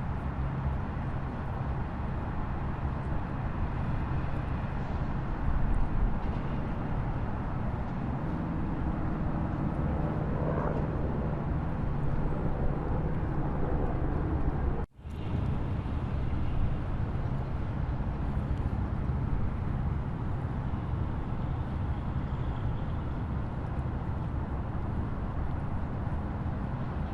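Waterfall: a steady rush of falling water, heaviest in the low rumble, that cuts out for an instant about halfway through.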